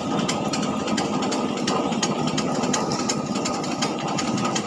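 Heavy-duty wood chipper with a metal conveyor running steadily: a continuous machine hum with a fast, even rattle of clicks and a thin steady whine.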